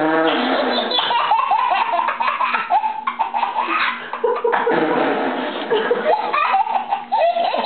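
Several people laughing hard together in overlapping peals, with high-pitched squeals of laughter among them.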